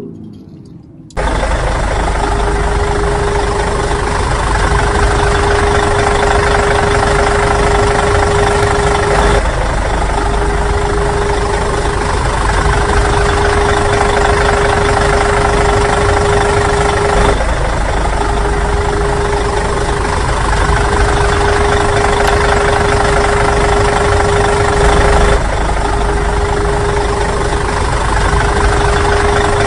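Engine running sound effect, a steady idling rumble with a constant hum, switching on abruptly about a second in and repeating as a loop about every eight seconds.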